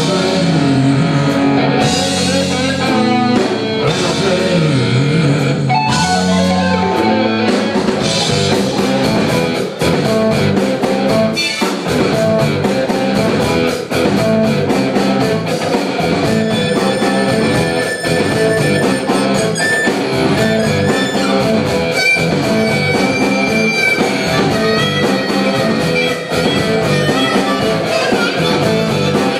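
Rock band playing an instrumental passage live: electric guitar leads over bass and drum kit. The guitar bends and slides in pitch during the first several seconds, then the band settles into a steady groove.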